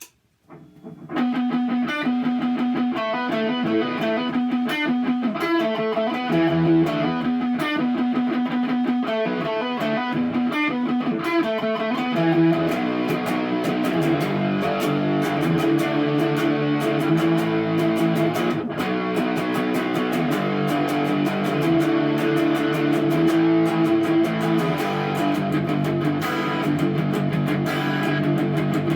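Electric guitar played through the Noise Therapy FX Insomnia distortion pedal: a heavy, distorted riff that starts about a second in, with the riff changing about halfway through.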